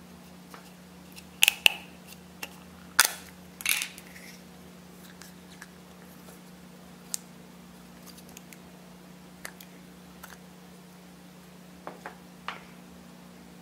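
Plastic Play-Doh tub clicking and popping as it is handled and its lid pulled off, with a few sharp loud clicks in the first four seconds and scattered fainter ticks after. A faint steady hum runs underneath.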